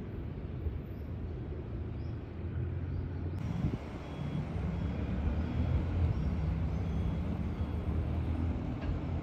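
Steady low outdoor rumble with no clear single source. It gets slightly louder after a cut about three and a half seconds in, where a faint steady hum appears.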